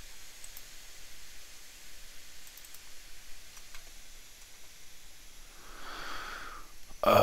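A few faint, scattered computer mouse clicks over a steady background hiss, with a soft breath near the end.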